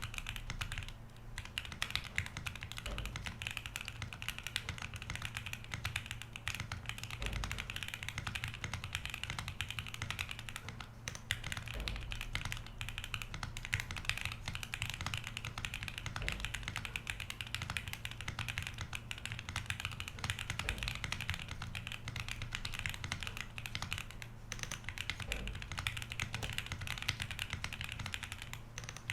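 Fast, continuous typing on a CIY Gas67 mechanical keyboard with Gateron Pro Silver linear switches and ABS doubleshot keycaps. The board is tape-modded, its silicone dampener is removed and its stabilizers are lubed. The keystrokes make a dense clacking patter, broken by a few brief pauses.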